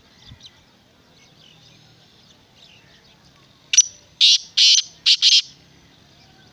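Black francolin calling: a sharp opening note, then four loud, harsh notes in quick succession, the last two close together, starting about four seconds in. Faint chirps of small birds come before it.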